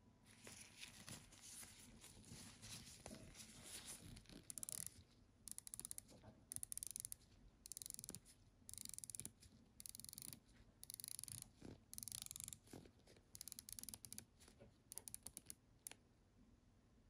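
Faint handling noise from nitrile-gloved hands on a bronze dive watch: repeated short bursts of scratchy rubbing and fine rapid clicking, coming and going every second or so.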